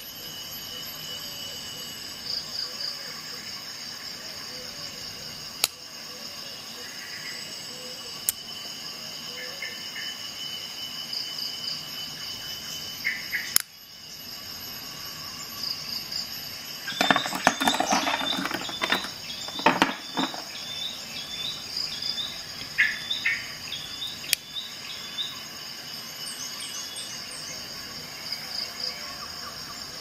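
Steady high-pitched chirring of insects, with scattered sharp clicks and a louder stretch of clattering and rustling a little past the middle.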